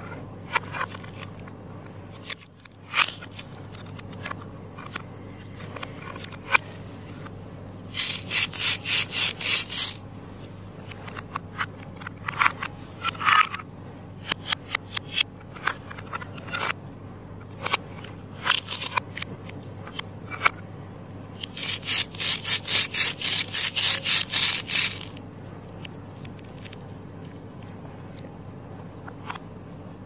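A plastic toy knife sawing back and forth through Velcro-joined plastic toy fruit on a plastic cutting board. It makes two runs of quick rasping strokes, about five a second, with scattered clicks and knocks of the plastic pieces being handled and set down.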